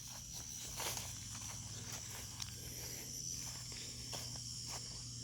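Evening insect chorus, a steady high-pitched chirring, with a few faint rustles and footsteps.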